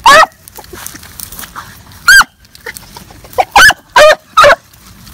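A hound baying in short, high cries while running a rabbit: five quick yelps, one right at the start, one about two seconds in, then three close together near the end.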